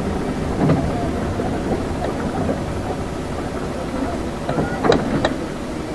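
City bus interior while riding: a steady low rumble of engine and road, with small rattles and knocks, and two sharper clacks about five seconds in.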